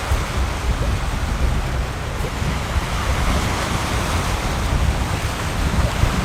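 Wind rushing and buffeting the microphone in uneven gusts, a steady loud roar with a heavy low rumble.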